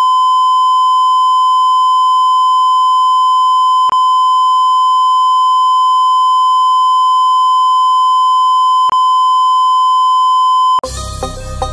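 A loud, steady, high-pitched electronic beep tone held for about eleven seconds, with two brief clicks along the way. It cuts off suddenly near the end as music starts.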